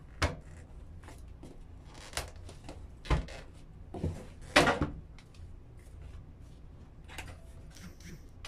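Plastic housing of a wall-mounted bathroom exhaust fan being worked loose by hand. It gives a string of short plastic knocks, clicks and scrapes, with the loudest cluster about four and a half seconds in.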